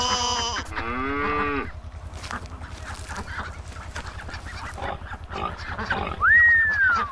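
Honking animal calls, like a goose, in the first second and a half, then a quieter stretch and a single sliding tone near the end that rises, falls and rises again.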